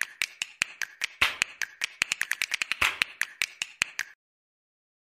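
Title-card sound effect: a rapid, uneven run of sharp clicks, about seven a second and crowding closer together near three seconds in. They stop about four seconds in.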